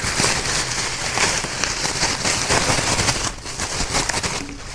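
Thin plastic bag crinkling and rustling as it is opened and handled: a dense run of small crackles that eases off near the end.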